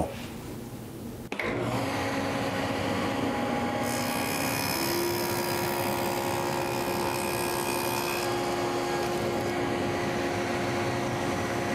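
Table saw with a stacked dado blade switched on about a second in and running steadily. From about four to eight seconds in, a hiss is added as the dado blade cuts a shallow groove in the edge of a wooden frame rail; the saw keeps running after the cut.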